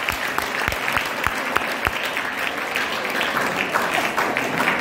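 An audience of students applauding in a hall, with a run of heavier, evenly spaced claps about three a second during the first two seconds.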